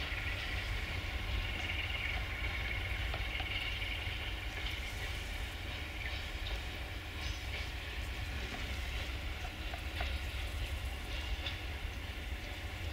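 Empty coal hopper wagons of a freight train rolling past at a distance, over a steady low rumble. A high wheel squeal fades away over the first few seconds, and occasional clicks come from the wheels on the rails.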